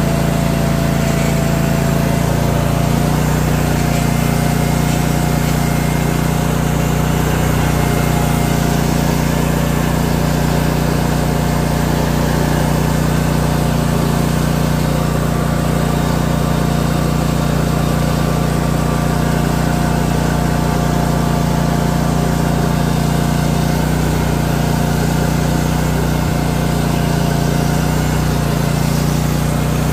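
Barreto walk-behind trencher's engine running steadily at high speed while the trencher digs a trench in soil, with a thin steady whine above the engine note. The note steps up slightly about three seconds in.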